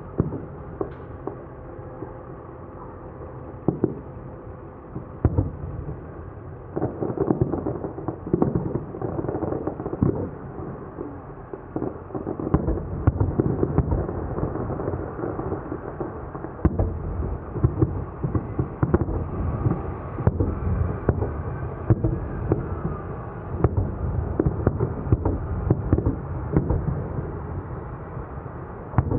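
Fireworks display: a long run of booming shell bursts and pops, coming thicker and closer together from about seven seconds in.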